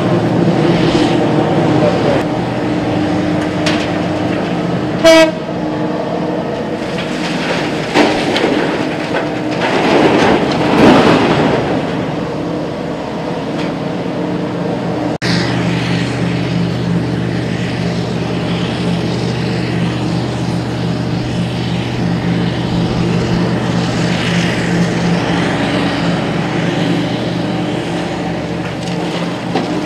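Diesel engines of a hydraulic mining excavator and haul truck running with a steady drone, with a short horn blast about five seconds in. Around ten to eleven seconds a rush of rock spills into the haul truck's bed.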